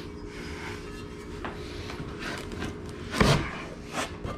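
Handling noises over a steady low hum: a loud brief clatter about three seconds in, then a smaller knock near the end.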